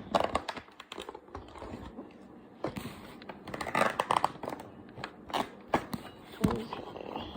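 Packaging being handled and pried open by hand, crinkling and tearing with scattered sharp clicks.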